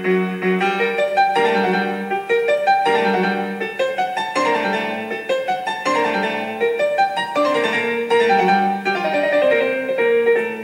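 Background piano music: a steady stream of quickly changing notes.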